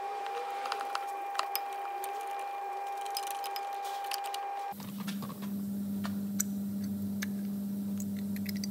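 Scattered light metallic clicks and taps as the 2012 Ford C-Max's front brake caliper guide pins are drawn out and the caliper is lifted off the disc, over a steady hum that drops to a lower pitch about five seconds in.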